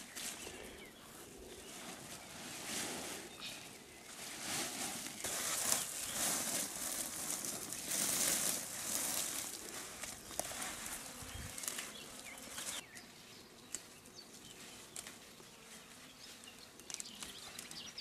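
Leaves and undergrowth rustling irregularly as Kaldirik (Trachystemon orientalis) stalks are picked by hand, busiest in the middle stretch. A few faint bird chirps come near the end.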